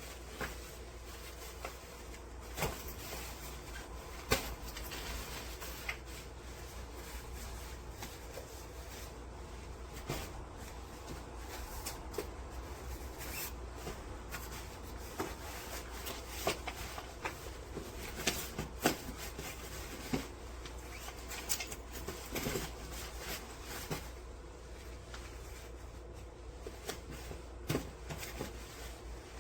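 Things being handled and packed into a hardside carry-on suitcase: scattered rustling with soft knocks and clicks at irregular intervals.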